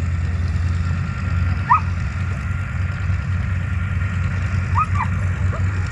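An engine running steadily at low revs with a deep hum, and two brief high chirps over it, one about two seconds in and one near the end.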